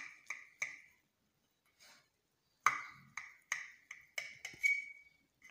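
Kitchen knife blade striking a ceramic plate while cutting through a pan-fried rice cake: sharp clicks with a short ring, three quick ones, a pause, then about six more, the last ringing out briefly.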